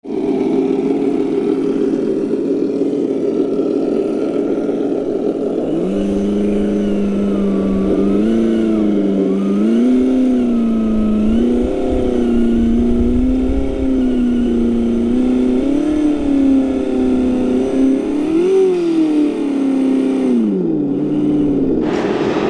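Simulated engine sound from an electronic sound module on a Traxxas TRX-4 Land Rover Defender RC crawler. It idles steadily for about six seconds, then swells and dips in pitch again and again as the throttle is worked, and winds down near the end.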